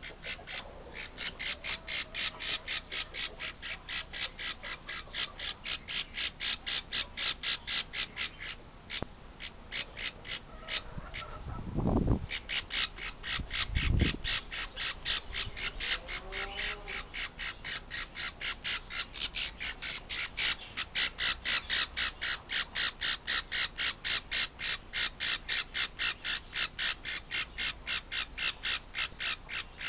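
Baby parrot chick squawking in rapid, evenly spaced calls, about three a second, with a short break near the middle. Two dull low thumps come about halfway through.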